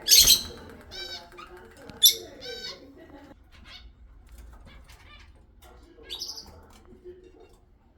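Parrots in an aviary calling: a loud harsh screech right at the start and another sharp screech about two seconds in, with shorter chirping calls between them and one more call about six seconds in.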